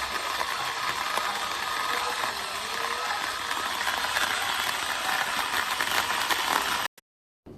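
Portable USB-rechargeable electric coffee grinder running steadily, grinding coffee beans; it cuts off suddenly about seven seconds in.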